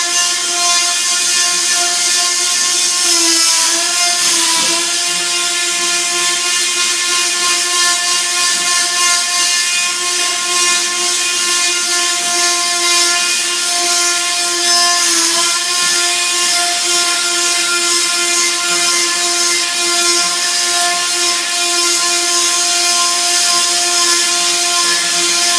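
Electric power tool running with a loud, steady high whine while cutting back the edges of buckled hardwood flooring to give it room to expand; its pitch sags briefly twice as it bites into the wood.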